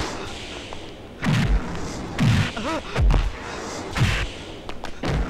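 Movie fight punch sound effects: a run of about five heavy thuds roughly a second apart as blows land, with a man's short pained cry in the middle.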